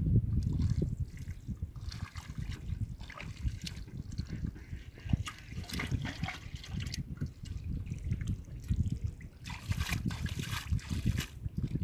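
Hands splashing and squelching through shallow muddy water and mud in short bursts, feeling for fish, over a steady low rumble.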